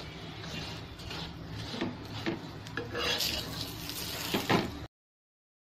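Metal spatula scraping and pressing on a lauki paratha on an iron tawa, spreading oil over it, with a few sharper clinks of metal on iron. The sound cuts off suddenly near the end.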